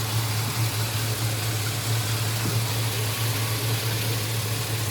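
GM 3.6-litre V6 engine idling steadily with an even hum, running again after its no-start problem was fixed.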